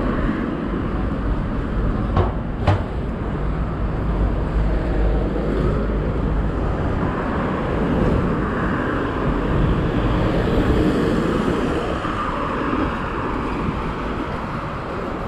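Road traffic passing on a multi-lane street: a steady rush of tyres and engines that swells for a few seconds in the middle. Two sharp clicks, about half a second apart, about two seconds in.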